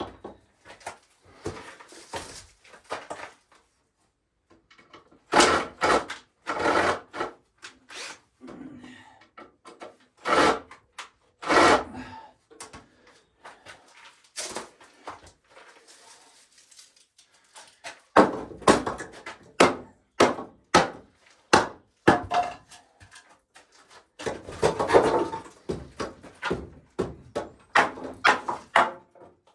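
Pieces of wood being handled and knocked together in irregular clattering bursts, with quieter pauses between.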